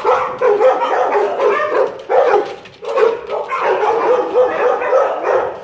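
Several dogs barking and yelping at once in a hard-walled shelter kennel room, the calls overlapping almost without pause, with a brief lull about halfway through.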